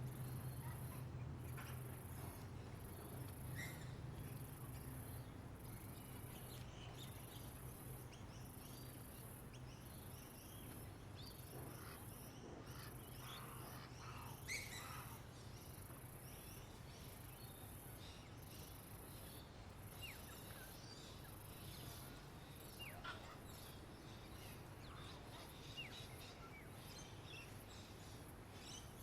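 Outdoor nature ambience: scattered short bird chirps, the loudest about halfway through, over a very high insect buzz pulsing about once a second. A low rumble underneath fades out about halfway.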